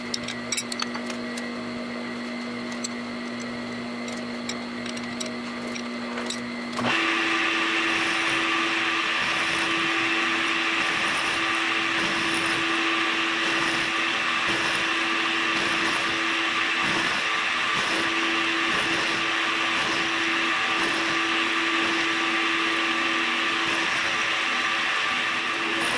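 Milling machine running with an end mill, at first quieter with a few light ticks. About seven seconds in it turns louder and higher-pitched and holds a steady hum as the end mill cuts the metal coupler lugs.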